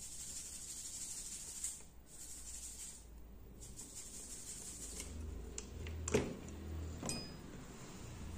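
Soft clicks and scrapes of a soldering tool working over the pins of a phone's screen connector, the sharpest click about six seconds in, over a steady high hiss and low hum.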